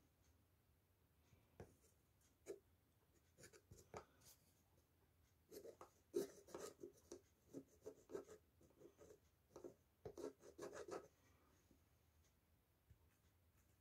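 Faint scratching and light taps of a soldering iron tip working against the tin oil can as its spout is soldered on, a scattered run of small scrapes that grows busier midway and then stops shortly before the end.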